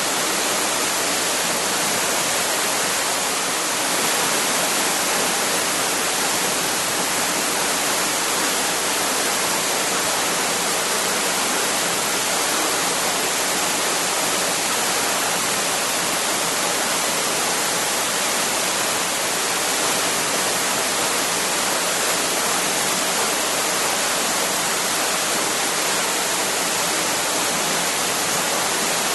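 Waterfall: a steady, even rush of falling water, strongest in the hiss.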